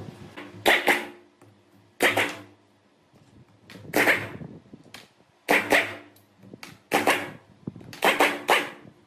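Repeated hand-tool strokes on metal machine parts, about one a second, each a sharp hit that dies away quickly with a brief metallic ring.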